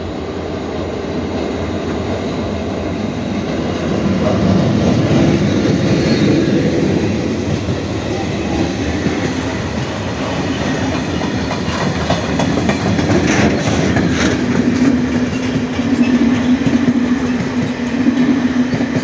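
Freight train hauled by two ČD electric locomotives (classes 363 and 163) rolling past with open wagons and towed Škoda metro cars, wheels clattering over the rail joints. It grows louder about four seconds in as the train draws level, and a steady low hum sets in near the end.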